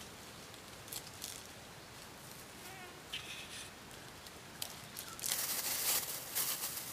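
Plastic bags rustling and crinkling as hands rummage in them, with a few light clicks. The crinkling swells loudly for the last second or so.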